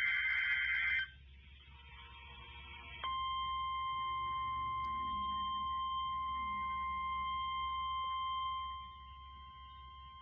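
A NOAA Weather Radio alert: the rasping digital data burst of a SAME header cuts off about a second in. After a short pause, the steady 1050 Hz weather radio warning alarm tone sounds, a single unbroken beep-like tone. It drops in level near the end but keeps going.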